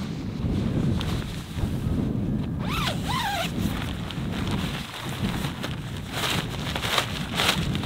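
Kelty backpacking tent's door zipper pulled open in a few quick rasping strokes near the end, over wind rumbling on the microphone.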